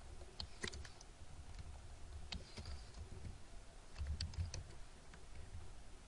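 Computer keyboard typing: scattered faint key taps, a few close together early on and a small cluster about four seconds in.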